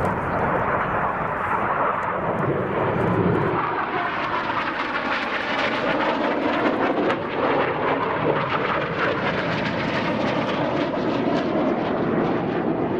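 BAE Hawk T1 jets with Rolls-Royce Turbomeca Adour turbofans flying past, a continuous loud rush of jet engine noise, its pitch sweeping as they pass.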